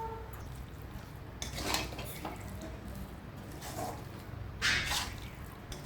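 A cooking spoon scraping and clinking against a kadai or serving dish, three short scrapes a second or two apart.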